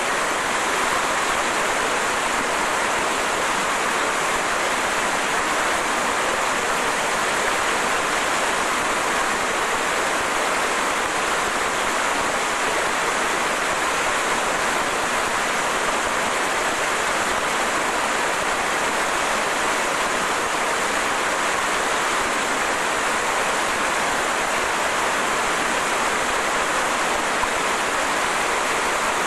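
Small waterfall on a mountain stream pouring over boulders into a pool: a steady rush of water.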